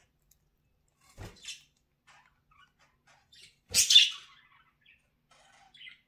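Pet budgerigars giving short, high chirps, with one louder, harsh call about four seconds in. Two low knocks come with them, one about a second in and one just before the loud call.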